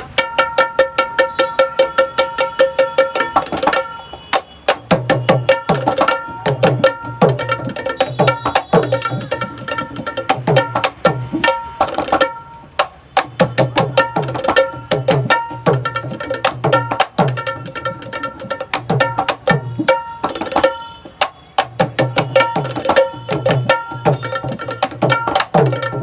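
Dholki being played in fast rhythmic patterns as a sound check. Deep bass-head strokes bend in pitch, sharp treble-head strokes ring over a steady high tone, and there are short pauses between phrases.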